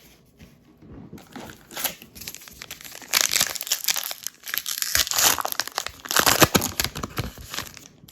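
Crinkling and tearing of a trading-card pack wrapper as it is torn open and handled, light at first and much louder from about three seconds in.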